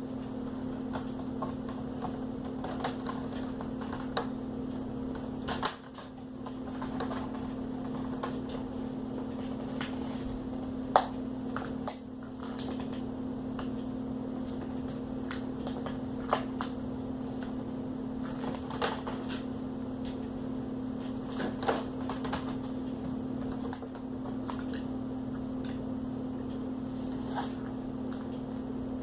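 Scattered clicks and ticks of the laptop's plastic screen bezel being worked loose by hand, over a steady low hum.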